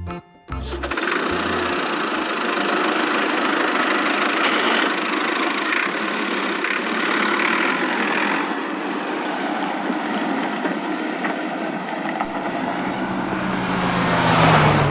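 A vehicle engine sound effect running steadily, swelling louder near the end with a low hum coming in.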